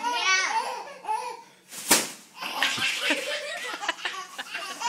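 A baby laughing in bursts, set off by the crinkling of a bag; a sharp, loud rustle comes about two seconds in.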